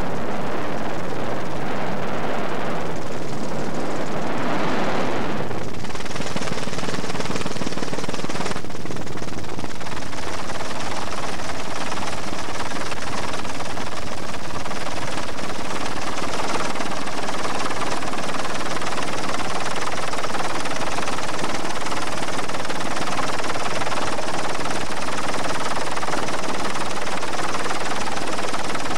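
Steady drone of a helicopter heard from on board, with a brief swell of rushing noise about four to six seconds in.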